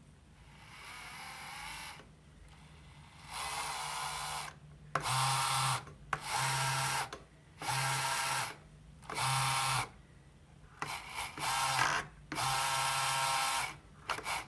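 Electric drive motors of a remote-control lawnmower, fed by a Sabertooth motor controller, whining in bursts of one to two seconds that start and stop seven or eight times as the radio sticks are pushed. The motors respond to the controls: the drive works.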